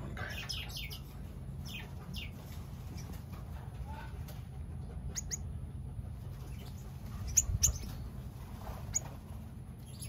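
Small aviary birds giving scattered short, high chirps, over a steady low rumble. The loudest chirps, with a low thump, come about seven and a half seconds in.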